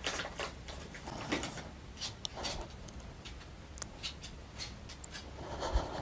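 A small dog moving about on a wooden floor: scattered quiet clicks of its claws, with light rustling.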